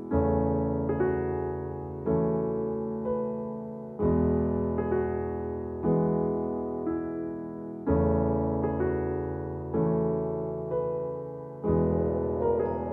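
Background music: piano or electric piano chords struck about every two seconds, each ringing and fading before the next.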